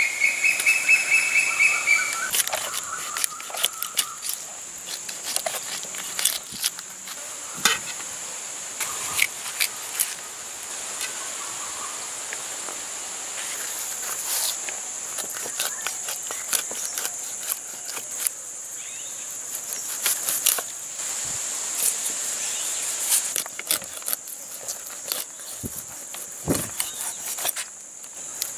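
Knife scraping scales off a whole fish in short, irregular scraping and clicking strokes, over a steady high drone of insects. A bird calls briefly at the very start.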